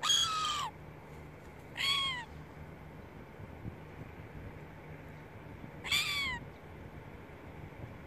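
Silver gull calling three times: short cries that rise and then fall in pitch, the first right at the start, the second about two seconds in, the third about six seconds in.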